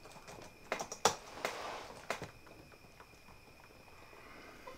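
A few sharp clicks and taps on a laptop in the first couple of seconds, then quiet room tone with a faint steady high tone.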